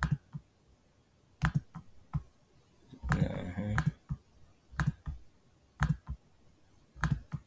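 Computer mouse clicking: about eight separate sharp clicks, spaced irregularly. About three seconds in there is a louder noise lasting most of a second.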